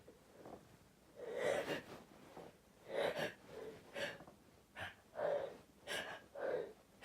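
A person's short, breathy gasps, about eight of them, coming quicker after the first: the catching breaths that build up to a sneeze.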